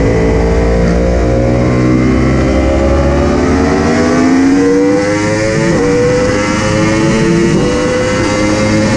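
Yamaha R1 sport bike's crossplane inline-four under hard acceleration at wide-open throttle, its pitch climbing steadily, with brief dips about six and seven and a half seconds in as it shifts up. Steady wind rush from the rising speed runs under it.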